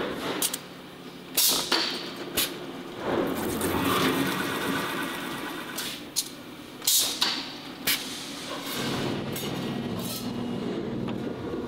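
Metal-working shop sounds: sharp metallic knocks and clanks every second or two, and a steady machine hum that comes in about three-quarters of the way through.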